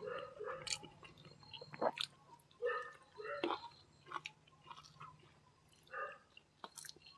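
A person chewing and eating rice and curry by hand, heard close up: soft wet mouth sounds and small clicks, coming and going with short pauses.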